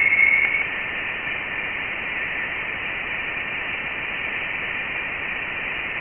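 Steady static-like hiss with a band of faint steady tones high up: spacecraft radio and plasma-wave data from interstellar space converted into sound.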